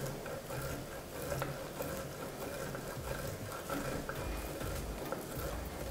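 Beef sausage being rubbed up and down a handheld steel grater, a quiet continuous rasping of repeated strokes.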